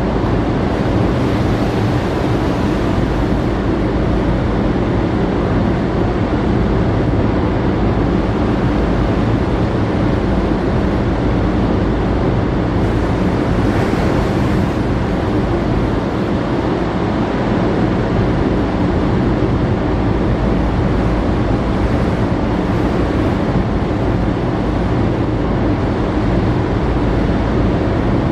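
Steady wind noise on the microphone over the rush of the open sea, with a constant low hum from the cargo ship's engine underneath.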